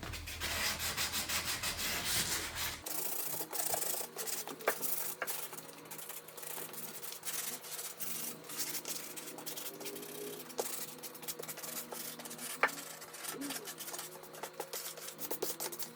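Wood being sanded by hand with a sanding pad in quick repeated strokes, smoothing the edges of a wooden scroll-saw cutout.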